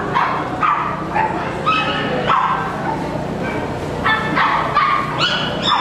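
Small dogs yapping and barking in quick, irregular succession, short high-pitched barks coming every half second or so.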